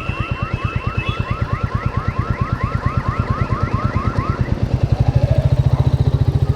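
An electronic alarm sounding a fast run of rising chirps, about five or six a second, that stops about four and a half seconds in. Under it a motorcycle engine idles with an even thump, louder over the last two seconds.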